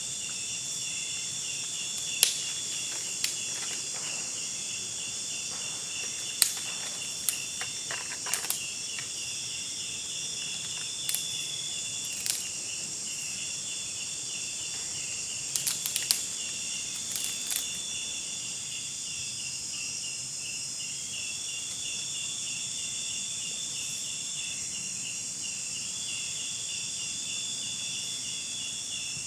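Steady chorus of crickets and other insects: a fast pulsing chirp, a high continuous whine that drops out and returns, and a high hiss. Sharp clicks and snaps come at irregular intervals during the first 18 seconds, some in quick clusters, and are the loudest sounds.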